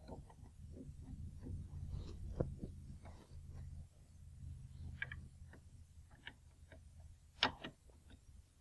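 Small metal clicks and knocks from hands and a hex key working the standard brake cartridge loose inside a SawStop table saw's blade opening. The sharpest click comes about a second before the end. A low steady hum runs under the first few seconds.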